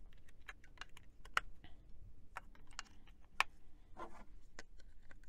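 Irregular small plastic clicks and taps from a Garmin eTrex handheld GPS being handled while fresh batteries are fitted, with sharper clicks about a second and a half in and again a little after three seconds.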